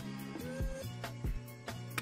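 Background music with a steady beat and sustained low notes.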